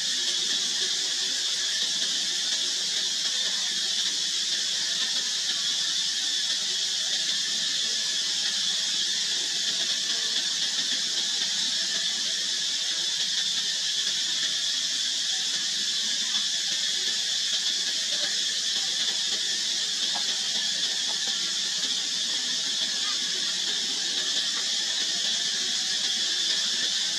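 Steady, high-pitched drone of an insect chorus such as cicadas, holding an even level throughout.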